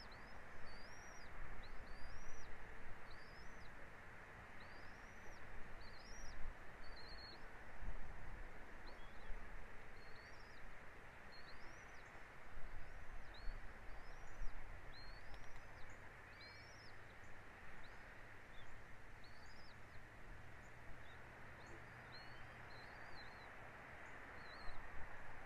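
A bird calling in a long series of short, high, arched chirps, one or two a second, over a steady outdoor noise like wind.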